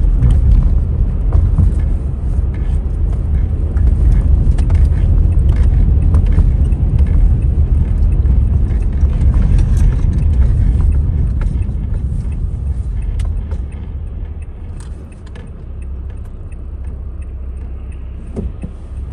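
Car cabin road noise: a steady low rumble of tyres on wet pavement, with scattered light ticks of rain on the car. The rumble drops off about two-thirds of the way through as the car slows to a stop at the light.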